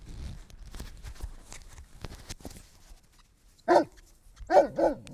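A dog barking: one short bark about three and a half seconds in, then two quick barks close together near the end, each dropping in pitch. Faint rustling and clicks come before the barks.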